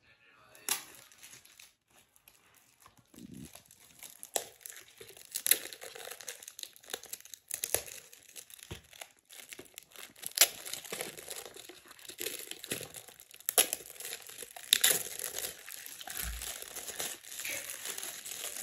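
Shiny gift-wrapping paper crinkling and tearing as a present is unwrapped by hand, in irregular sharp rustles. Near the end, crinkly wrap is peeled off the box inside.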